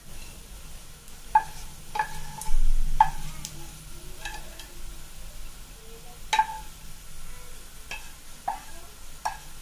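Wooden spatula and frying pan knocking against a ceramic plate as crisp fried anchovies are scraped onto it: about ten sharp clinks that ring briefly, irregularly spaced, the loudest about six seconds in.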